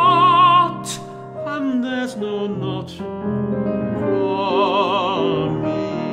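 A man singing with vibrato while accompanying himself on a Steinway grand piano. He holds a long wavering note at the very start and another around the middle, with piano chords sustaining between them.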